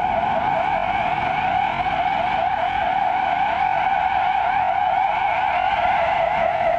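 Synthesized sci-fi alien sound effect: a steady electronic tone with a fast, even warble, about five wobbles a second, held without a break.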